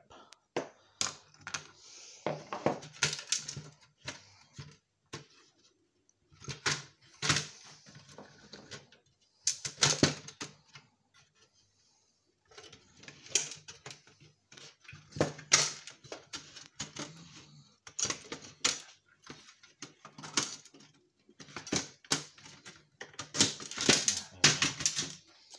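Small electronic scrap being handled and sorted: circuit boards and plastic and metal parts clattering and knocking together in irregular bursts of clicks and rattles, with short pauses between.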